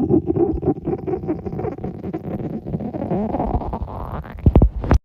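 A hungry person's stomach growling loudly: a long, continuous gurgling rumble full of rapid little bubbling clicks, its pitch rising in the last couple of seconds, then a few louder gurgling pops before it cuts off suddenly.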